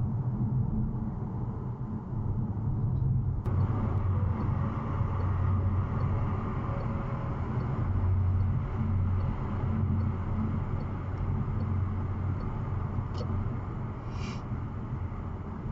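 Steady road and engine drone of a car driving at motorway speed, heard from inside the car. The drone changes abruptly about three and a half seconds in, and near the end a windscreen wiper makes a brief swish as it sweeps across the glass.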